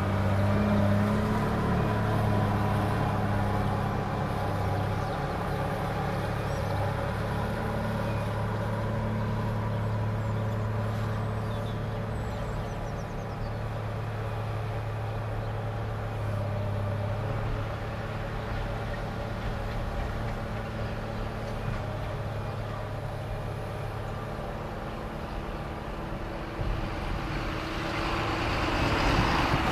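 Volvo L60E wheel loader's diesel engine running steadily under load as the machine climbs and works the maize silage clamp, its low drone slowly fading as it moves up the heap. A louder rushing noise builds near the end.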